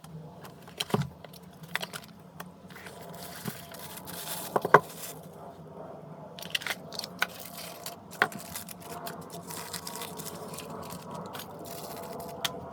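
Scattered clicks, scrapes and rustles of objects being handled, with one louder click about five seconds in, over a faint steady hum.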